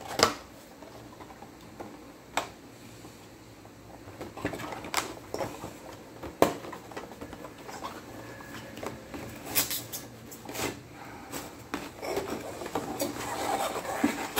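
A clamp light and its cardboard box being handled and unpacked. Scattered sharp knocks and taps, the loudest just after the start and about six seconds in, give way to steadier scraping and rustling of cardboard and paper in the second half.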